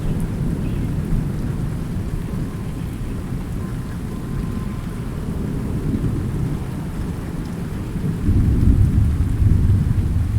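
Rainstorm with low rolling thunder under the rain; the rumble swells louder about eight seconds in.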